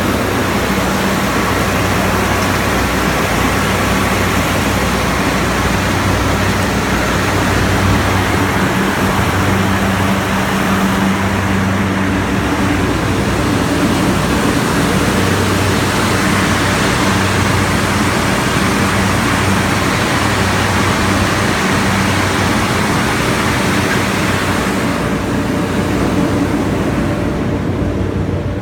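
Trilectron 20-ton aircraft ground air-conditioning unit running steadily: a loud, even rush of blown air over a low hum. The hiss softens slightly near the end.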